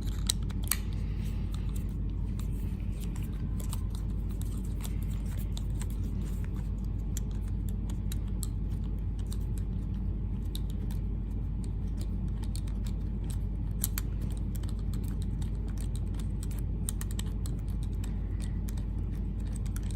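Allen key turning a long screw in a steel padlock body, giving scattered faint metallic clicks and ticks, with a sharper tick about a second in and another past the middle, over a steady low hum.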